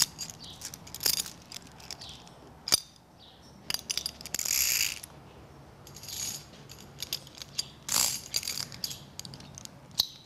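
Metal lead-shank chain clinking and jingling as it is handled and re-threaded through a horse halter's rings. It comes as a run of light, irregular clicks, with a few short jingles.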